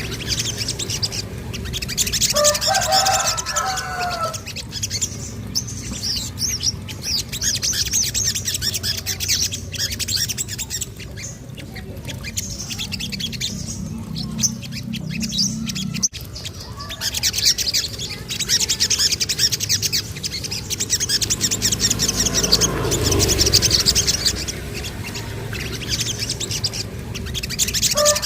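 Sogon (spiderhunter) songbird chirping in rapid, high-pitched trills, with short gaps between bursts. A lower, warbling call breaks in a few seconds in, and there is a sharp click about halfway.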